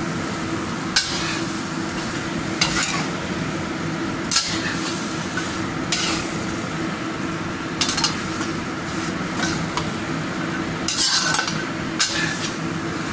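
Chicken pieces in chili sauce sizzling in a wok while a spatula stirs them, with the spatula scraping and knocking against the pan every second or two.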